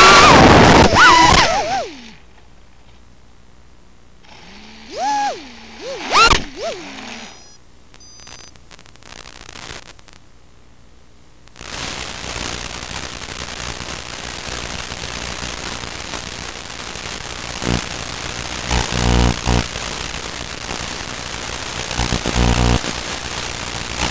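Micro FPV quadcopter's motors whining as it tumbles into the grass, cutting out about two seconds in. A few short motor spins and a click follow, then a steady hiss with crackling bursts.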